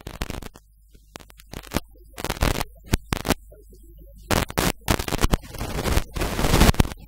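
Irregular bursts of harsh crackling and scratching static, stopping and starting, with no clear speech through it.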